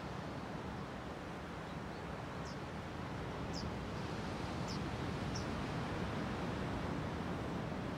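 Steady rush of ocean surf breaking on a sandy beach. Four short, high, falling bird chirps come between about two and a half and five and a half seconds in.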